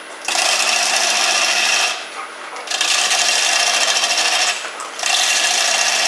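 Square cutter shearing a spinning cedar cylinder on a wood lathe, roughing it down: three steady scraping cutting passes, each about two seconds long with short pauses between, taking about a quarter of the cutter's width at a time.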